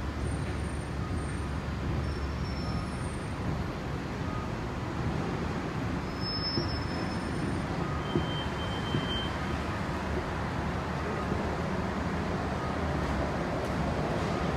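Steady low rumble of a running escalator and the station's background noise, with a few faint clicks.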